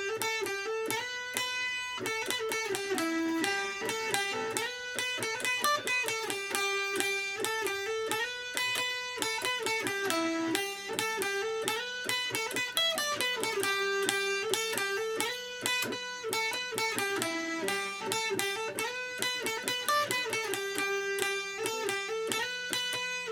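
Guitar music: quick picked notes in a repeating melodic pattern, steady in loudness throughout.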